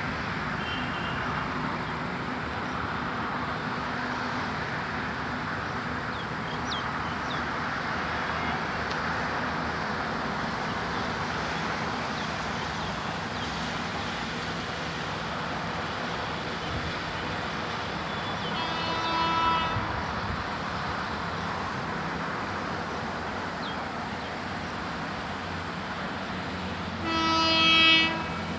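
Express train running with a steady rattle over the track, and two horn blasts from its WAP-7 electric locomotive: a short one about two-thirds of the way in and a louder, longer one near the end.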